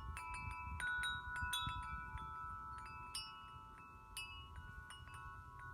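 Wind chimes ringing: irregular, sharp strikes of several clear pitches that ring on and overlap one another.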